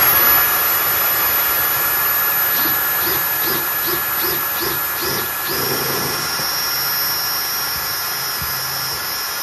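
Dyson cordless stick vacuum running steadily with a high whine, held at the wall to suck up dust while a DeWalt cordless drill bores into concrete. The drill goes in short pulses, about three a second, partway through, then runs steadily from about halfway on.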